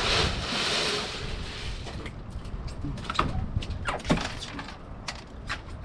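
Cobia being lifted out of a boat's fish box of ice slush and loaded into a plastic dock cart: rustling and sloshing at first, then a few sharp knocks about three and four seconds in.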